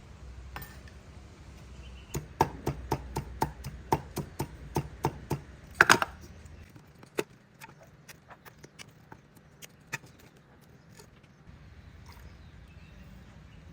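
A steady run of sharp knocks, about four a second, then a louder clatter about six seconds in, followed by a few scattered fainter taps.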